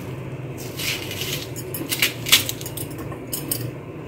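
Metal spoon scraping out the inner layers of a halved raw onion: a run of short, irregular crunching scrapes, the loudest about two seconds in.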